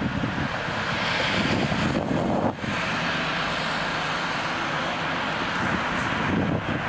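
Steady outdoor city noise: a rumble of distant traffic with wind on the microphone, dipping briefly about two and a half seconds in.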